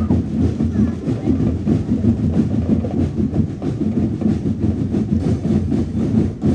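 Drum and lyre corps drumline playing a dense, steady marching beat on bass and snare drums.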